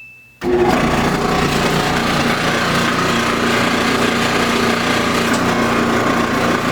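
Samsung gas dryer (DV40J3000GW/A2) starting up and running with a loud, steady, grating noise, a fault sound. The noise cuts in about half a second in, just after a short beep.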